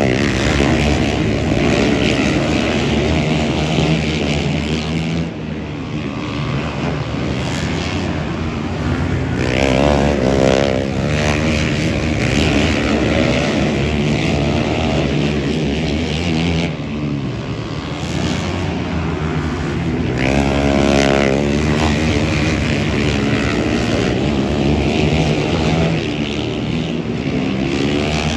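Engines running and revving, their pitch rising and falling again and again.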